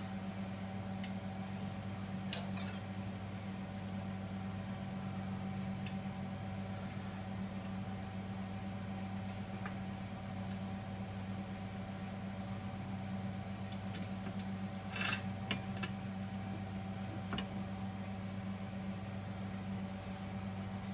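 Scissors and a carving fork working the string off a tied roast on a stainless steel platter: a few sparse light clicks and scrapes, over a steady low hum.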